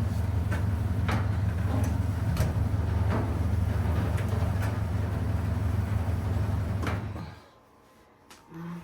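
A steady low hum with scattered sharp clicks and knocks, typical of dryer parts being handled during belt fitting. The hum cuts off suddenly about seven seconds in.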